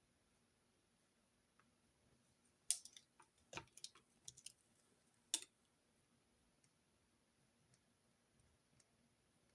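Small desk sounds of note-taking: a cluster of sharp clicks and taps, such as a pen or stationery being handled and set down, from about three to five and a half seconds in, in an otherwise near-silent room.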